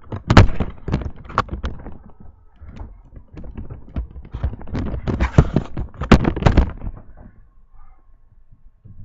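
Irregular knocks, thuds and rattles from a small shed door and its latch being handled and tried, a door that turns out to be locked. The loudest knocks come just after the start and about six seconds in.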